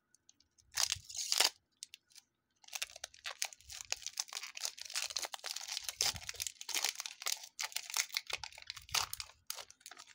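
Foil wrapper of a Pokémon Chilling Reign trading-card booster pack being torn open: a short rip about a second in, then several seconds of continuous crinkling as the wrapper is peeled back and the card stack is slid out.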